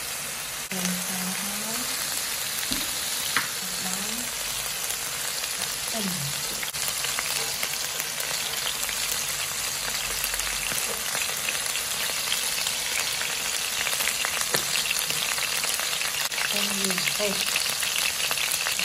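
Hot oil sizzling steadily in a wok, frying pieces of meat and ginger, with chopped garlic and chilli frying in the oil at the centre. The sizzle gets a little louder near the end.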